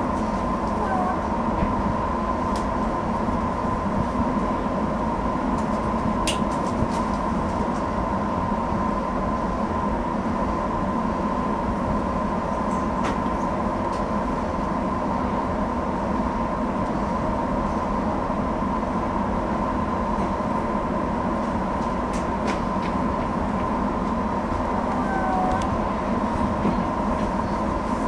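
Steady hum of a stationary 205 series electric train heard from its driver's cab, with a constant whine near 1 kHz and a few faint clicks.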